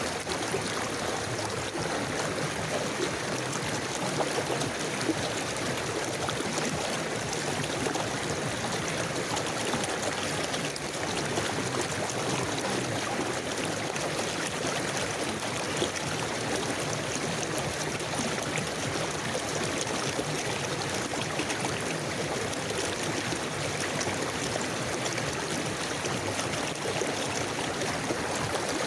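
A river or stream flowing steadily, its water splashing and gurgling over rocks with small bright splashes throughout.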